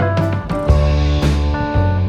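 Instrumental background music with a bass line, held pitched notes and percussion hits.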